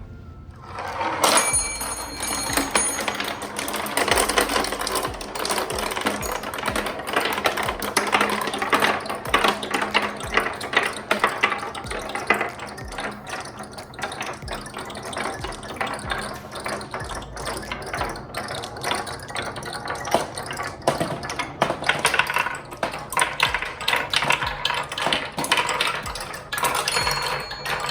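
A pack of glass marbles rolling and clattering down a marble-run track: a dense, continuous stream of clicks and rattles from about a second in.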